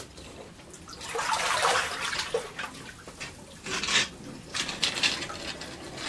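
Shallow water sloshing and splashing in irregular bursts as a long-handled hand net is pushed and swept through the flooded floor of a boat's hold.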